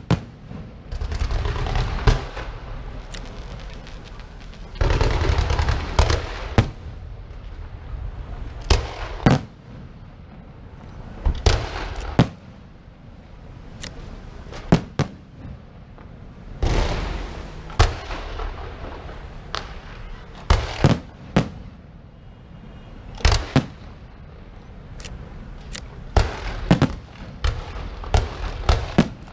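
Fireworks going off: many scattered sharp bangs, mixed with several dense hissing, crackling stretches of a second or two.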